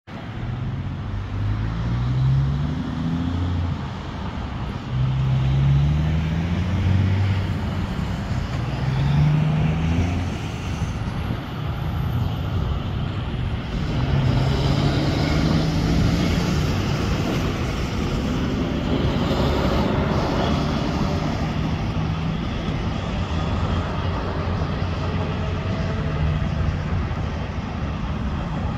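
Road traffic: a truck accelerating through its gears, its engine pitch rising and dropping back with each shift, followed by a steadier low rumble of passing traffic and idling diesel engines.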